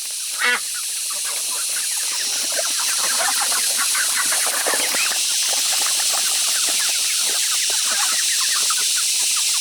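A flock of poultry calling: many short chirps and cheeps overlapping without a break, over a steady hiss.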